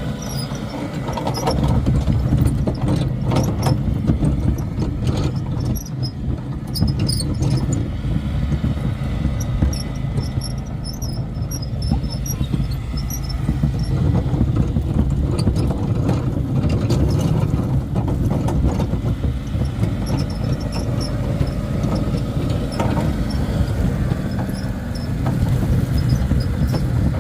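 Riding lawn tractor engine running steadily while towing a train of homemade carts, with loose rattling and intermittent high squeaks from the carts' hitches and wheels.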